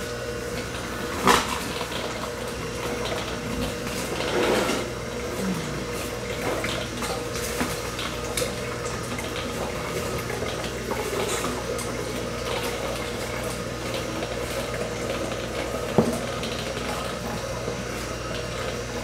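Slow press juicer's motor running with a steady hum while apple juice is poured from its plastic collection jug into a glass mason jar. Two sharp knocks of the jug or jar stand out, about a second in and near the end.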